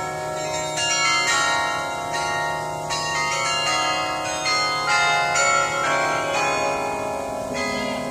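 Carillon being played: a tune of struck bronze tower bells, new notes coming several times a second, each ringing on with its overtones under the notes that follow.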